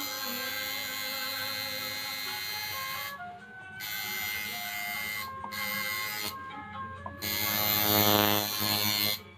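Electric tattoo machine buzzing steadily. It stops briefly about three seconds in, and again twice between about five and seven seconds in.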